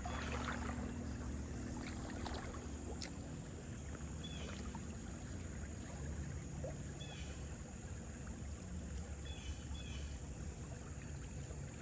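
Outdoor waterside ambience: a steady low rumble of wind and water, with a few short high chirps now and then.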